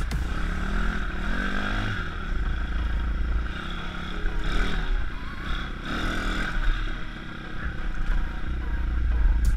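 Pit bike's single-cylinder YX 160cc four-stroke engine pulling along a dirt trail, its note rising in pitch several times as the throttle opens and falling back between. It is held to moderate revs while the new engine is run in. A heavy low rumble of wind buffets the helmet microphone throughout.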